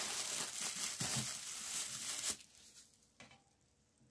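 Thin plastic bag crinkling as it is handled and gathered at the neck, stopping a little past two seconds in.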